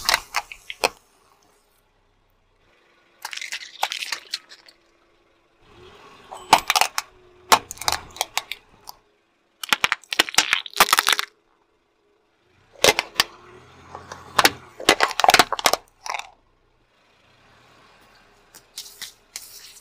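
Car tyre rolling over and crushing small plastic and wire objects on asphalt: bursts of sharp cracks, crunches and pops, about six clusters with short silences between them, over a faint steady hum.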